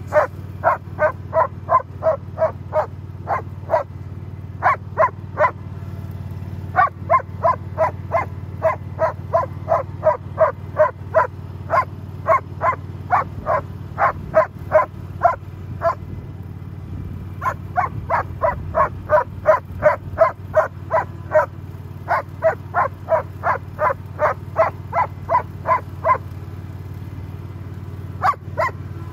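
German shepherd barking rapidly and repeatedly, about two to three barks a second with a few short pauses, over the steady running of a riding lawn mower's single-cylinder petrol engine.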